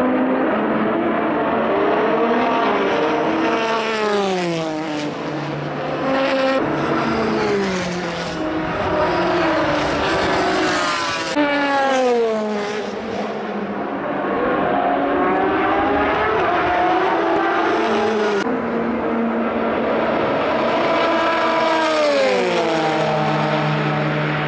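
Endurance race cars passing one after another, their engine notes sweeping down in pitch again and again, several overlapping at times. Near the end one engine holds a steady low note.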